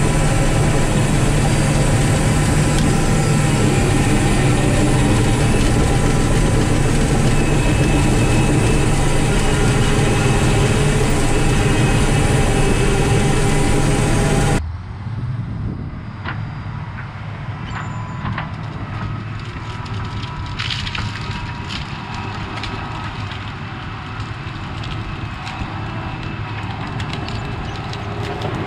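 Caterpillar 973C track loader's diesel engine working under load, loud and steady as heard from on the machine. About halfway through, the sound cuts to a view from outside, where the engine is quieter and farther off and small burnt trees crack and snap as the bucket pushes them over.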